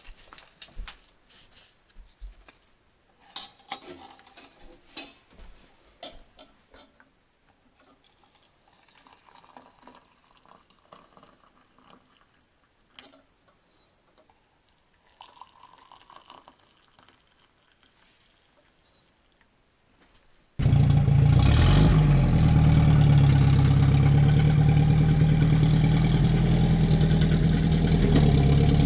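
Scattered faint clinks and light knocks for about twenty seconds. Then a sudden cut to a loud, steady vehicle engine running.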